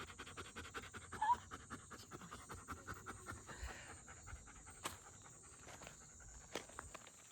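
A dog panting rapidly close to the microphone, several breaths a second, with a short rising squeak about a second in; the panting fades out about halfway through, leaving a steady high hiss and a couple of sharp clicks.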